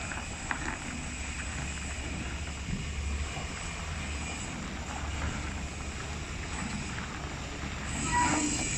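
Heavy truck running at low speed as it slowly tows a long low-bed trailer, a steady low rumble with some wind on the microphone.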